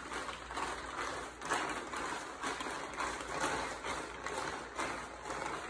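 Plastic tarp crinkling and rustling as it is rolled up tightly around a pole, in uneven surges a couple of times a second as the hands push the roll along.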